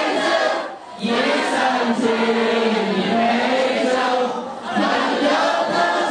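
A mixed group of teenage boys and girls singing together, holding long notes, with short pauses between phrases about one second and four and a half seconds in.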